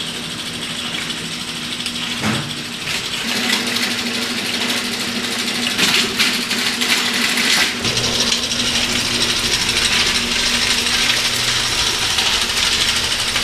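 Hay bale elevator running, its chain conveyor clattering steadily over a constant motor hum, with a few sharp knocks about two, six and nearly eight seconds in.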